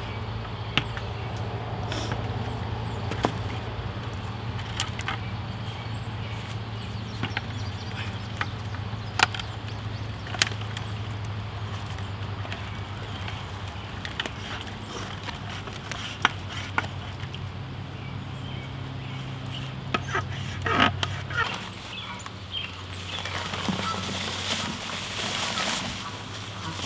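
Scattered sharp knocks of a wooden handle and branches against plastic buckets, over a low steady hum. Near the end comes a hiss of dry concrete mix being poured from its paper bag into a plastic bucket.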